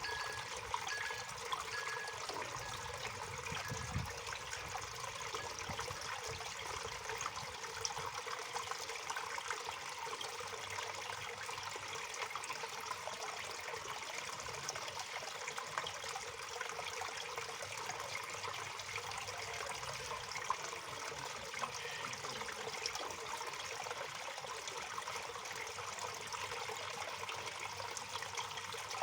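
Waterfall: a steady rush and splash of falling water.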